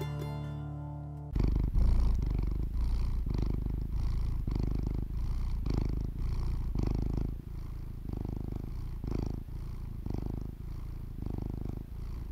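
Accompaniment music from the silent film dies away, then a domestic cat purring steadily, its purr swelling and easing about twice a second.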